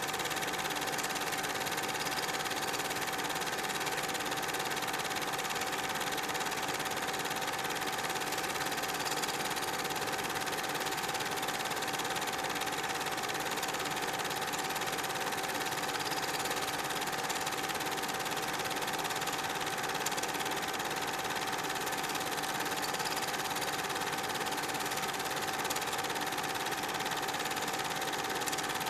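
Super 8 film projector running: a steady mechanical whir with a constant hum that does not change.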